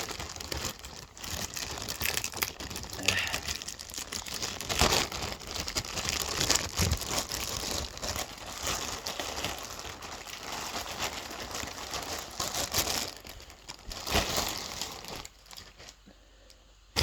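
Packaging crinkling and rustling in irregular crackles as a plush toy is worked out of it, quieting down near the end.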